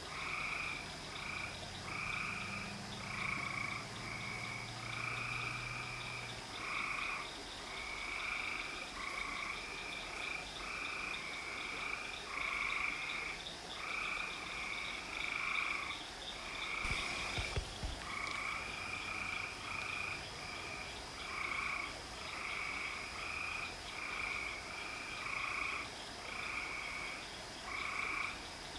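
Frogs calling at night: short croaking calls repeating about twice a second without pause, over a steady high-pitched tone. A brief knock about two-thirds of the way through.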